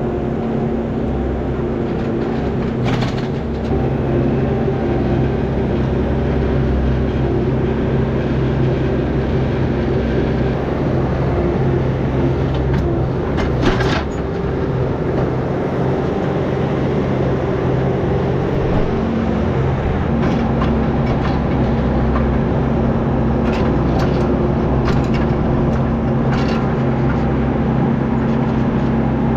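Tractor engine running steadily under load while pulling a hay baler, with a few sharp clacks from the machinery.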